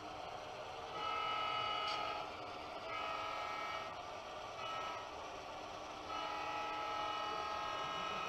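Model diesel locomotive's sound horn blowing the grade-crossing signal: two long blasts, a short one, then a long one, over a steady low hum.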